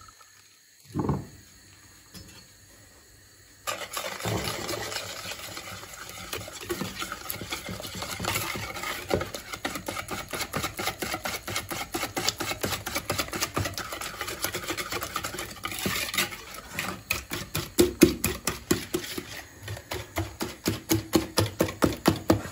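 Wire balloon whisk beating eggs and sugar in a ceramic bowl: a fast, steady clatter of the wires against the bowl that starts a few seconds in. Before it, an egg is cracked on the bowl, heard as a short sharp crack about a second in.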